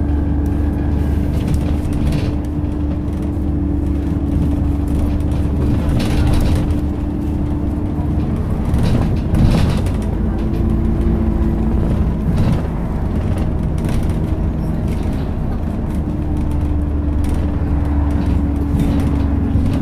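Inside an Optare Solo SR midibus on the move: steady low rumble from the engine and road, with a drivetrain whine that shifts pitch about halfway through as the bus changes speed. Occasional knocks and rattles from the body and fittings.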